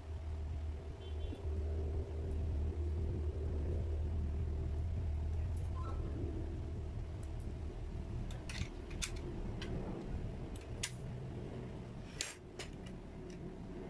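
A low rumble, loudest over the first half. From about eight seconds on come sharp metal clicks and taps as the palm router's straight guide and its small fittings are handled and fitted to the base.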